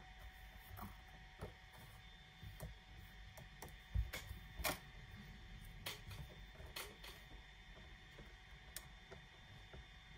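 Light plastic clicks and taps of a DJI Mavic Air's folding arms and propeller blades being unfolded by hand on a wooden table. The loudest is a knock about four seconds in, followed closely by a sharp click.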